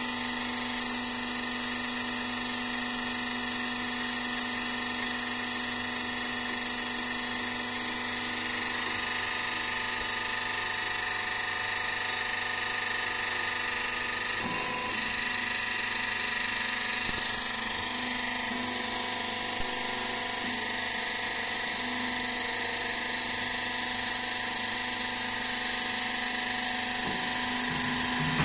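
Steady whine and hum of factory machinery, with several fixed high tones over a constant noise, changing slightly about halfway through.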